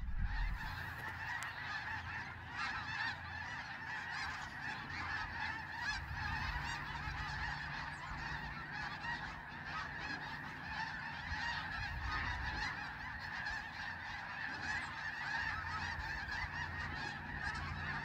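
A large flock of geese calling continuously, a dense chorus of many overlapping honks.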